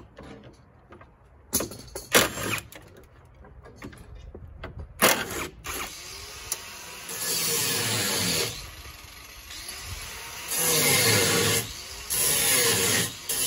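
Cordless power driver running in three bursts of a second or so in the second half, with the motor spinning up and down as it backs out front-suspension bolts. A few sharp metal clicks and knocks come before it.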